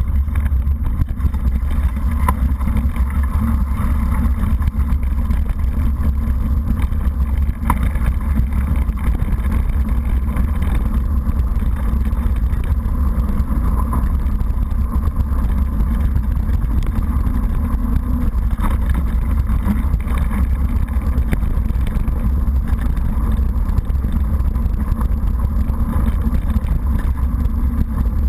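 Steady low rumble of wind and trail vibration from a mountain bike riding a rough gravel and mud track, picked up by a bike-mounted GoPro HD 960, with a few sharp knocks from bumps in the track.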